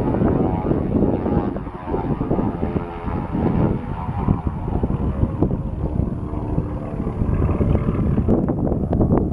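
Beechcraft Twin Beech 18's two radial piston engines running as it flies its aerobatic display. The propeller drone is steady and loud, its pitch drifting slightly.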